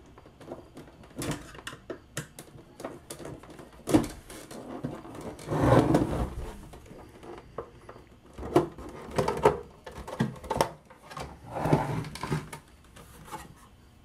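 Plastic cover of a refrigerator control-board housing being pried off with a flathead screwdriver: sharp clicks of plastic clips snapping loose and scraping of plastic on plastic, with a few louder clattering scrapes as the cover is worked free and lifted off.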